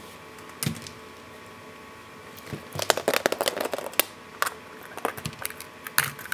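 Hollow plastic toy egg halves clicking and clattering as they are handled and knocked against each other: one clatter about a second in, a quick run of clicks near the middle, then a few single clicks.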